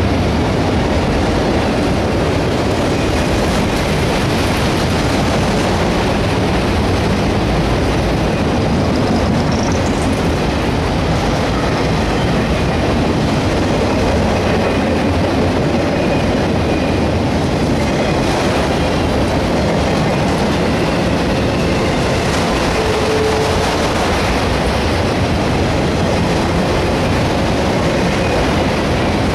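Autorack freight cars rolling past at close range: a loud, steady rumble of steel wheels on the rails with some clickety-clack. A brief rising high squeal comes about ten seconds in.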